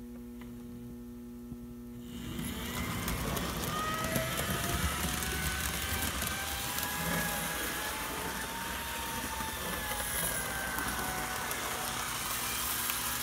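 HO scale TYCO Burlington locomotive with an MU-2 motor running its train on the layout: a wavering electric motor whine over the rattle of wheels on track. It starts about two seconds in, after a steady power-pack hum.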